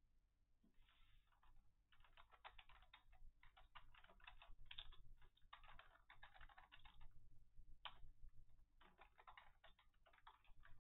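Faint typing on a computer keyboard: several quick runs of key clicks with short pauses between them.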